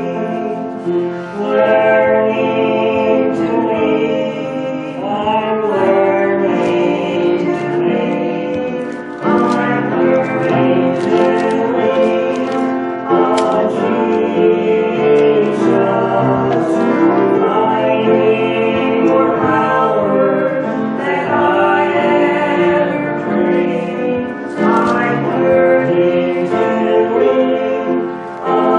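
A man singing a gospel song into a handheld microphone, held notes in phrases of a few seconds with short breaks between them.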